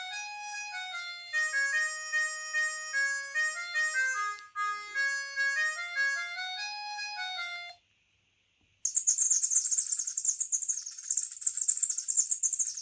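Two ringtones played on a COSUN 9958 Chinese mobile phone's loudspeaker. A tune of short, clear notes stops suddenly about three-quarters of the way through. After about a second's pause, a shrill chirping ringtone with rapid pulses starts.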